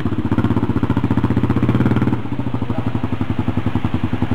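ATV engine running at high revs, then dropping to lower revs about two seconds in, with an even, pulsing beat.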